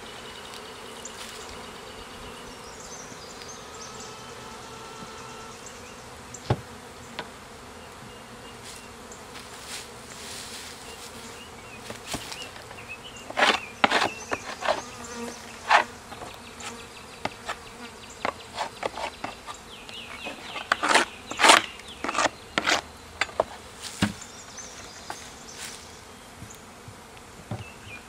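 Honey bees of a freshly hived swarm buzzing steadily around the hive box. From about halfway through, sharp knocks and clicks of wooden hive parts being handled as the hive is closed up, in scattered clusters.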